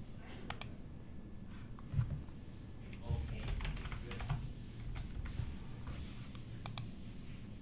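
Typing on a computer keyboard: scattered key presses and sharp clicks in short spurts, with a few dull thumps between about two and four and a half seconds in.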